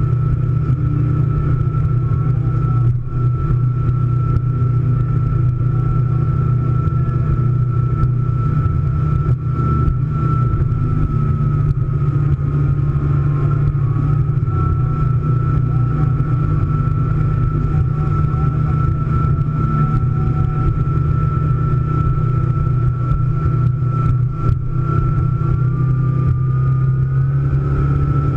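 Scarab powerboat's engine running at a steady cruise, a deep steady drone with a thin high whine above it that shifts slightly near the end, mixed with hull and water rush.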